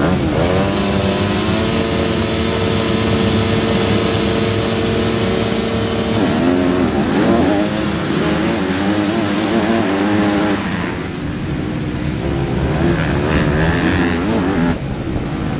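Motocross bike engines at a race start, heard from the rider's helmet: revs climb over the first second or so, hold steady for several seconds, then swing up and down as the bikes accelerate away. The sound drops a little in level after about eleven seconds.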